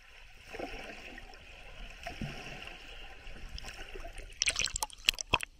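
Water rushing and gurgling over a camera's microphone held underwater, then a quick run of sharp splashes about four and a half seconds in as it breaks the surface.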